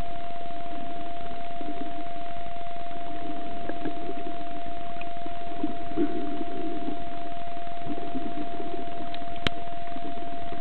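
Muffled underwater noise picked up by a submerged camera: an even hiss with a soft rumble that swells and fades every second or two, under a steady unbroken tone.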